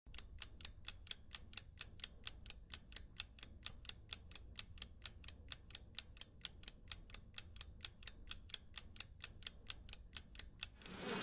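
Quiet, steady ticking, about four even ticks a second, over a faint low hum. Near the end a loud noise swells in.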